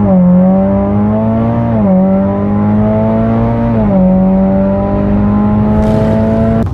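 Car engine held at high, steady revs on launch control, its pitch dipping briefly and climbing back twice before the sound cuts off abruptly near the end.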